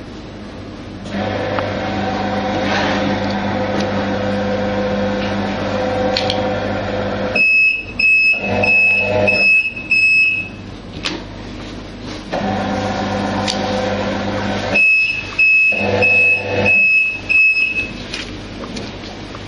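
The conveyor belt motor of a QMAX NF-1 needle detector starts running about a second in. It stops twice, and each time the detector's alarm gives a string of about five short, high beeps. The alarm is the sign that a needle or other metal has been found in the item passing through.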